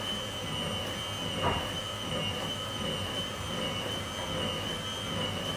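Electric hand mixer running steadily, its beaters whirring through pumpkin donut batter in a bowl, with a constant high whine from the motor.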